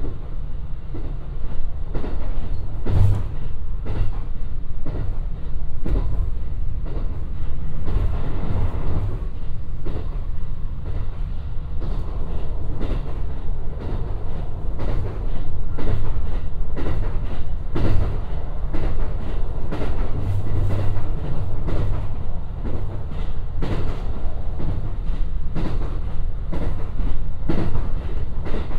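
A JR West 223-series electric train running, heard from inside the carriage: a steady low rumble with irregular clicks and knocks of the wheels on the track.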